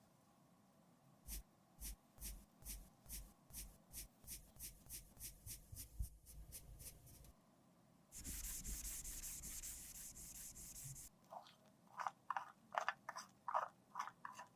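Cosmetic product being worked by hand: a run of rhythmic scraping strokes, about three a second, then a steady hiss for about three seconds, then irregular crunching near the end as the product is crushed.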